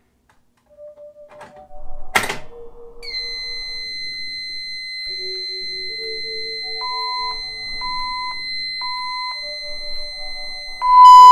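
Fire alarm speaker strobes start a loud pulsing alert tone near the end, about half a second on and half a second off, ahead of the voice evacuation message. Before that there are soft pitched tones, a sharp knock about two seconds in, and a steady high-pitched tone from about three seconds on.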